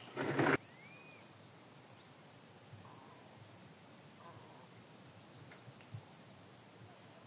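Faint, steady high-pitched insect trilling from the grassy lakeside, with one short rising-and-falling whistle about a second in. A brief loud noise fills the first half-second.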